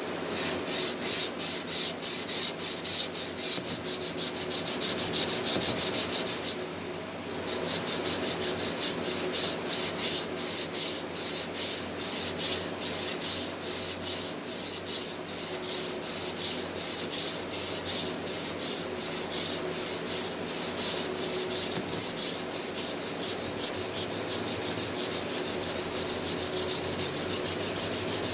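Hand sanding with sandpaper held in a homemade sanding holder: steady back-and-forth scraping strokes, about two a second. There is a short pause about seven seconds in, and the strokes quicken toward the end.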